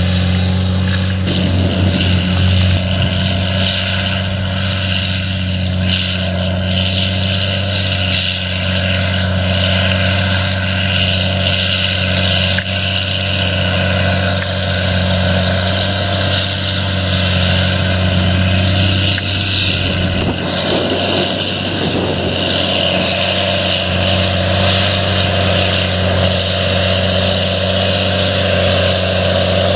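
A steady engine drone at a constant speed, with a low hum and noise over it.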